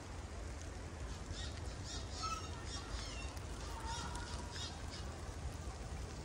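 A songbird calling a quick series of high, downward-sweeping chirps, from about a second in to near five seconds, over a steady low rumble.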